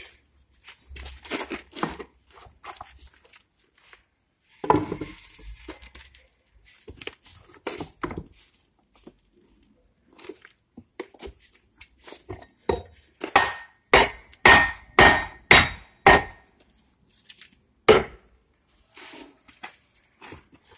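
Axe being driven into a cork oak trunk to split it: scattered lighter knocks and scrapes, then a run of about six hard blows about two a second with a metallic ring, and one more blow a couple of seconds later.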